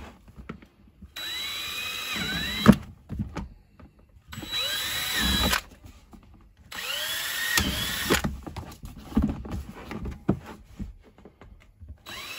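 DeWalt 18V cordless drill boring pilot holes through a plastic box wall into a wooden backing board, run slowly: three short runs of about a second and a half each, the motor's whine rising as it spins up and bending as the bit bites. The first run ends in a sharp knock, the loudest sound, and light clicks and knocks fall between the runs.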